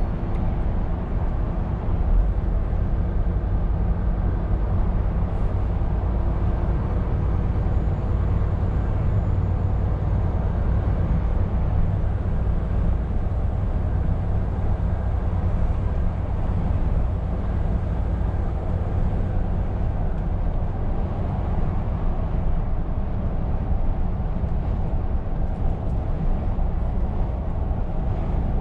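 Scania R520 truck cruising at motorway speed, heard from the cab: a steady low engine drone with tyre and road noise.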